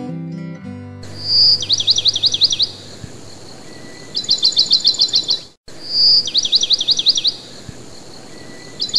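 Guitar music ending about a second in, giving way to bird song: a short high whistle followed by a run of quick down-slurred notes, then a faster trill. The same phrase plays twice, with a short dropout between, like a looped recording.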